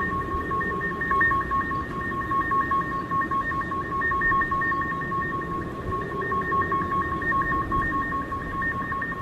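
Unexplained steady two-note hum with a fast, even pulsing warble, over a low rumble, of the kind passed around as a mysterious 'UFO sound'.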